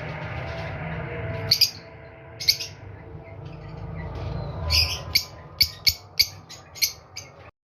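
Violet-mutation Fischer's lovebird calling with shrill chirps: two single calls early on, then a quick run of about eight sharp calls, roughly two a second, near the end, over a low background hum.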